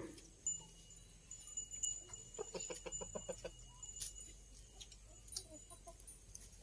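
A chicken clucking, with a quick run of clucks a couple of seconds in and a few scattered calls after.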